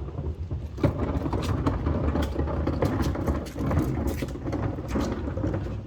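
A steady low rumble, mechanical in character, with scattered clicks and ticks over it.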